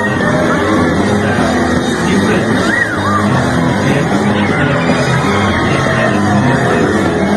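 Rock music with singing, loud and continuous.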